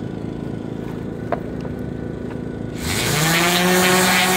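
A generator's engine runs with a steady hum, and there is a single click a little over a second in. Near the end a 5-inch random orbital sander starts up with a quickly rising whine, then settles into a steady whine and hiss as it sands old bottom paint off a fiberglass hull.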